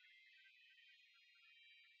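Pipe organ playing very faintly in a high register: a quick running figure of short notes under held high chords.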